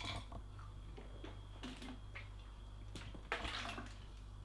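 A person gulping water to swallow a handful of vitamin and mineral pills in one go, with two short noisy gulps, one about a second and a half in and one about three seconds in.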